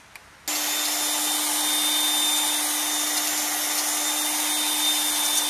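Electric drill spinning a cylinder hone inside a tractor engine's cylinder liner, starting abruptly about half a second in and running at a steady speed with a steady motor whine.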